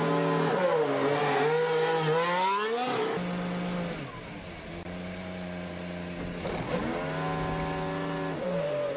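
Formula 1 car's turbocharged V6 hybrid engine running at low revs in the pit lane, its note wavering and gliding up and down for the first few seconds. It then holds a steady buzzing pitch, heard from the onboard camera, dips and climbs briefly midway, and drops away near the end as the car pulls into its pit box.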